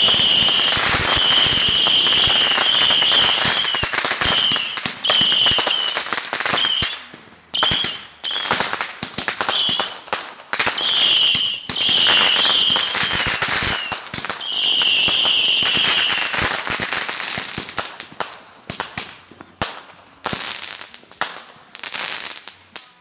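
Consumer fireworks going off: a dense rapid crackling of pops under a shrill, warbling whistle that sounds repeatedly for about the first sixteen seconds. After that the crackling thins into scattered bursts of pops that fade out near the end.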